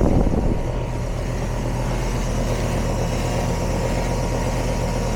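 Lennox heat pump outdoor unit running, its compressor and condenser fan giving a steady hum. The system is running on crazy low refrigerant pressures, 0 subcool and 25 superheat.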